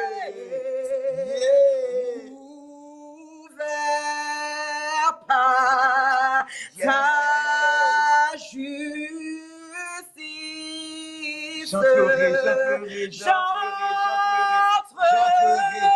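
A man and a woman singing a worship song together, unaccompanied, holding long notes with vibrato in phrases broken by short pauses.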